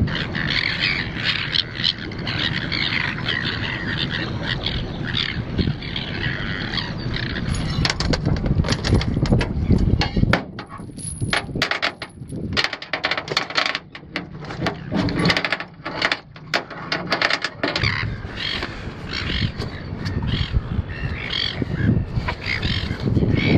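Metal chain clinking and rattling in quick irregular clicks as it is hauled over the side into an aluminium boat, with birds calling in the background.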